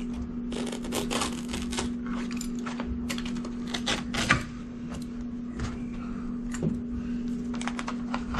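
Carpet being pressed by hand onto the tack strip along the wall while a power stretcher holds it taut: irregular crackling clicks and scrapes as the tack pins grab the carpet backing, over a steady low hum.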